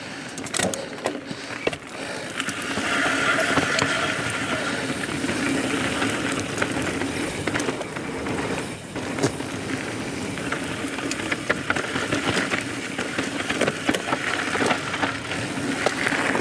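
Transition Spur 29er mountain bike descending a dirt singletrack: a steady rolling noise from the knobby tyres, with frequent sharp knocks and rattles as the bike runs over bumps, louder from about two seconds in.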